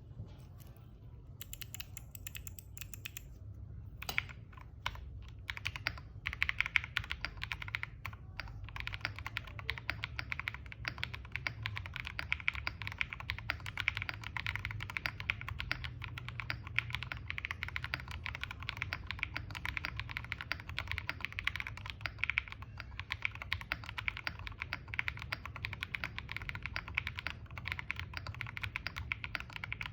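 Typing on a mechanical keyboard with SWK Yang switches, an aluminium plate and Cherry-profile keycaps. It starts as scattered keystrokes, then becomes steady, fast typing from about nine seconds in.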